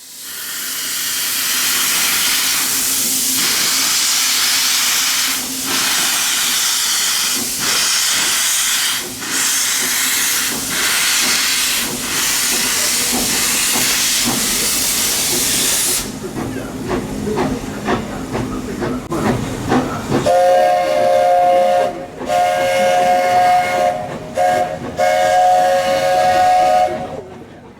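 0-4-0 steam locomotive #19 'Tracy Lynn' venting steam with a loud, steady hiss, then a few seconds of quieter clatter, then its steam whistle sounding a chord in several blasts with short breaks between them.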